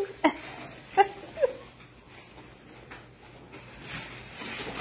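Young raccoons playing: three short squeaky calls in the first second and a half, then a rising rustle of paper near the end.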